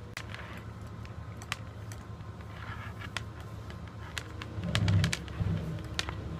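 Scattered light clicks and rustles of a clear plastic box of heat-shrink tubing and electrical wires being handled. A brief low hum-like sound about five seconds in is the loudest thing heard.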